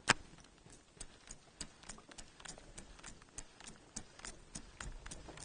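A sharp click just after the start, then a run of light, sharp clicks, about three a second and unevenly spaced.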